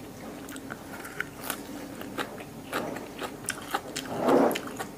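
Close-up wet chewing of raw beef liver with fresh Thai basil leaves: many small mouth clicks and smacks. A steady low dishwasher hum runs underneath, and there is a brief hummed voice sound near the end.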